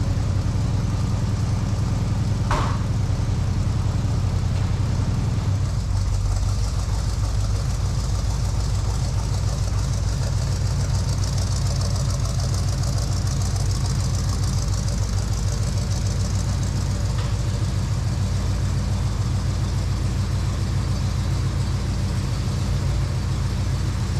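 1982 Chevrolet C10 squarebody's engine running steadily through newly fitted mufflers while it warms up, with its note shifting about five seconds in. A single sharp click comes about two and a half seconds in.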